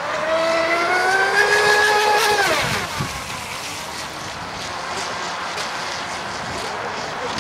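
Radio-controlled racing boat's motor whining at high speed, the pitch climbing for about two seconds, then falling sharply about two and a half seconds in. After that the motor is fainter and steadier.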